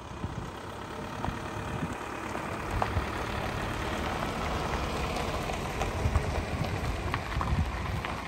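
Pickup truck towing a tanker trailer driving slowly past: a low engine and tyre rumble with a crackling hiss, swelling as it goes by.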